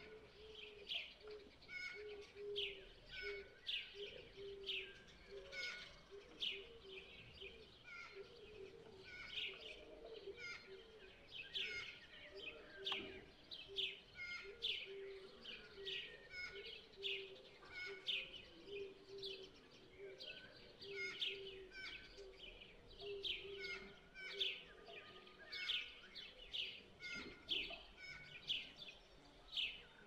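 Sparrows chirping over and over, short high chirps following one another through the whole stretch. Underneath, a lower note repeats quickly for most of it and fades out a little past two-thirds of the way through.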